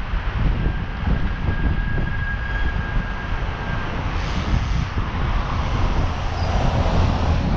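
Wind buffeting the microphone of an action camera on a moving bicycle, a low rushing rumble mixed with road and traffic noise. A thin steady whine sounds from about half a second in to about four seconds.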